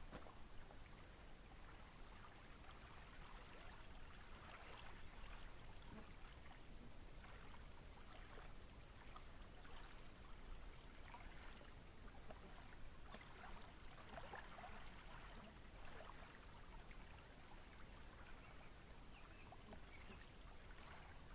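Faint lapping of small lake waves on a pebble shore, soft irregular splashes over a quiet background.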